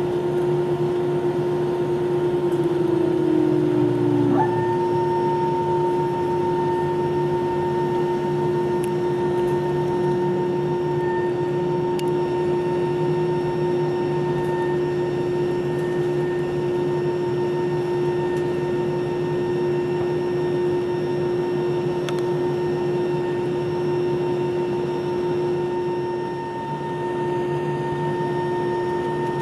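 Cabin noise inside a taxiing Airbus A319: a steady hum and rush from the idling jet engines and air conditioning, with several steady whining tones. About four seconds in, one whine drops in pitch and a higher whine starts suddenly and holds.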